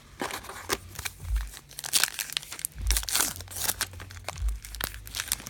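Trading-card pack and cards being handled: crinkling and rustling with many sharp clicks, and low thumps about every second and a half.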